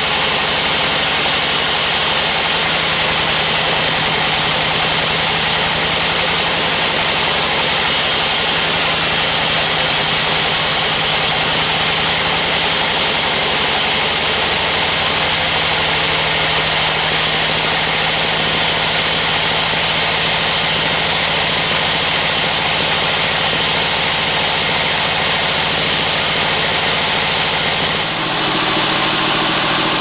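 Band sawmill running steadily as its blade cuts through a large log: a constant machine drone with a strong hiss from the saw. Near the end the drone shifts slightly in pitch.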